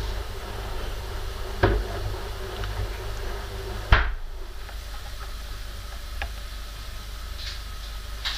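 Two sharp knocks about two seconds apart, the second the louder, over a steady low hum, with a few faint ticks later on.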